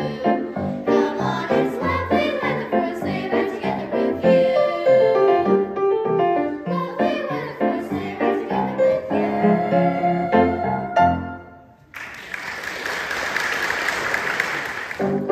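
Singing with musical accompaniment, a Christmas recital song, ending about eleven seconds in; then a few seconds of audience applause.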